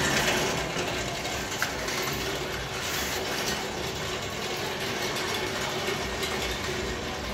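Homemade belt-and-pulley kayak pedal drive running on a test stand, its propeller spinning in the air: a steady mechanical running noise with a steady hum, and one sharp click about a second and a half in.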